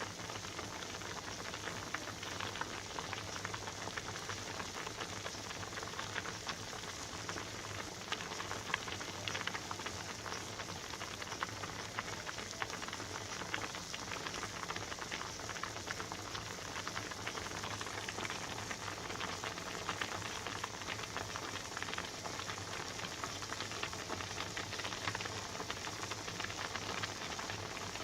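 Pot of pasta water at a steady rolling boil: dense, even bubbling and popping, with a steady low hum underneath.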